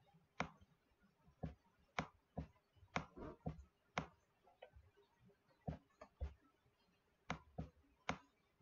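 Computer mouse buttons clicking: about a dozen sharp, irregular clicks, some in quick pairs, against faint room tone.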